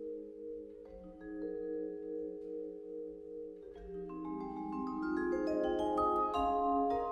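Solo tuned mallet percussion played with four mallets. Sustained low chords ring first; then, from about four seconds in, a climbing run of notes rises into the high register and grows louder.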